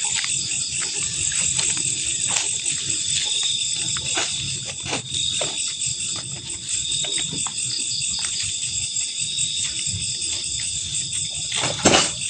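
Steady high-pitched chorus of night insects, with scattered short clicks and knocks from handling, a louder clatter near the end.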